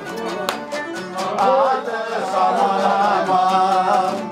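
A man singing a Cretan folk song, accompanied by a bowed Cretan lyra and a plucked laouto.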